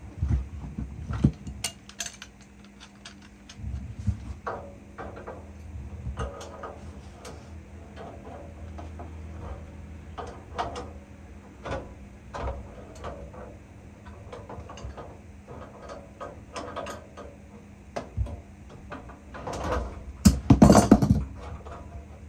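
A metal hand tool clicking and knocking against copper refrigerant tubing and fittings at a furnace's evaporator coil, in irregular short strokes, with the loudest cluster of knocks near the end.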